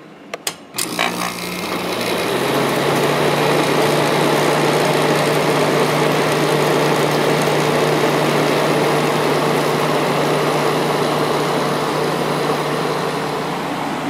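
A switch click, then a Fedders 7500 BTU window air conditioner's compressor starts about a second in and runs with a steady hum over the fan's airflow.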